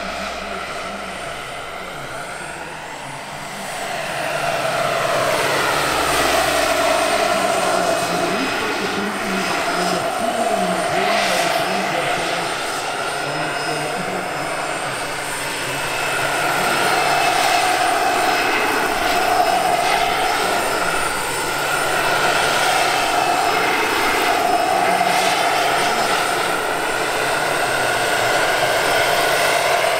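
Turbine-powered radio-controlled scale model of an Airbus H145 helicopter in flight: a steady turbine whine with the rotors, its pitch wavering as it moves, growing louder about four seconds in and again from about the middle as it comes closer.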